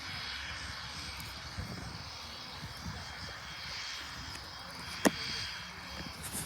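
Distant aircraft engine running steadily, with faint high steady tones over a low rumble. A single sharp click comes about five seconds in.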